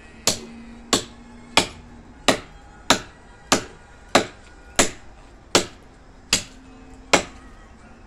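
A machete chopping into the base of a thick wooden pole: about eleven sharp blows at a steady pace of a little over one a second, hacking through hard wood for firewood.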